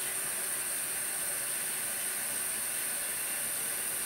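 Kitchen tap running, a steady hiss of water.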